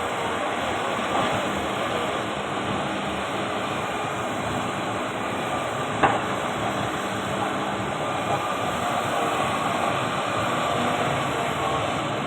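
Excavator engine running steadily, with one sharp knock about halfway through.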